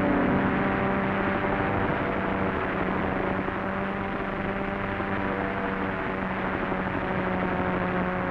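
Piston aircraft engines droning steadily, an even low tone over the hiss of an old film soundtrack.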